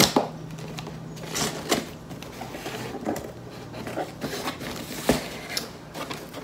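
Scissors cutting open a cardboard shipping box: irregular sharp snips and scrapes of the blades through the cardboard.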